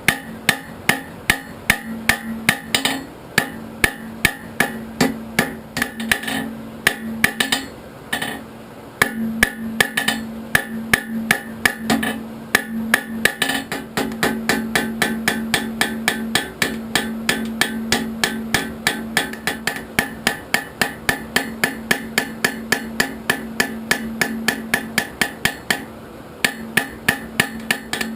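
Hand hammer striking hot carbon steel from an old file on an anvil, a steady run of about three blows a second with the anvil ringing after each, broken by a couple of short pauses.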